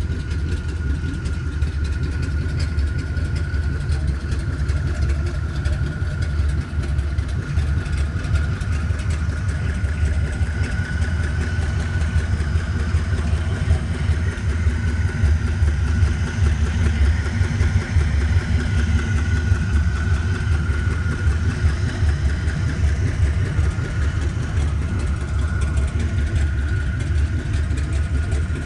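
Pontiac engine from a 1968 Firebird, installed in a 1972 LeMans, idling steadily with a low, even pulse and a thin steady whine above it.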